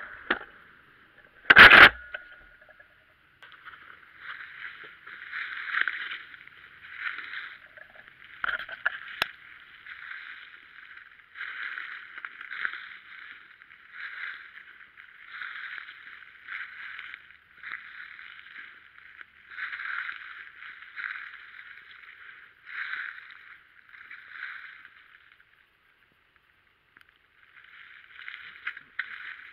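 A shotgun shot about two seconds in, then footsteps crunching through dry fallen leaves at a walking pace, with a short pause near the end.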